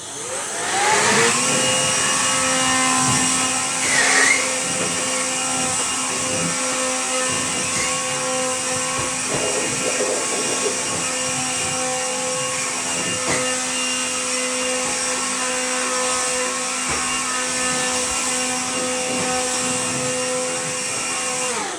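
Electric blower motor spinning up with a rising whine, then running steadily to blow out metal drilling shavings, and winding down at the end.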